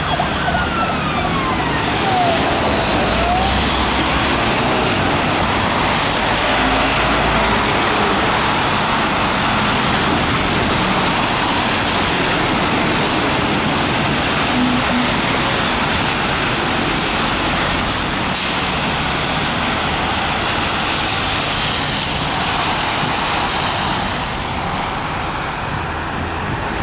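A fire engine's wailing siren sweeps down in pitch and trails off within the first few seconds. After it comes steady city traffic noise from passing cars and trucks.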